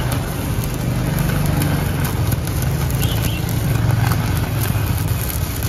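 Stick-welding arc from a Classic ZX7-200CL inverter welder burning a 3.2 mm electrode on steel: a steady, continuous crackle and sizzle of an arc held at a stable length.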